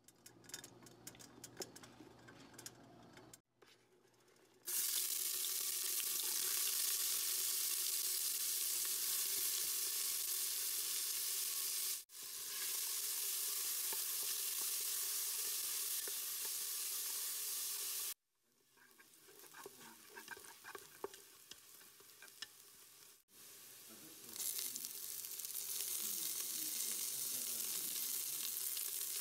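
Chopped red onions frying in a steel pot: a loud, steady sizzle starts about five seconds in and breaks off abruptly a few times. In the quieter stretches there are light clicks and scrapes of stirring.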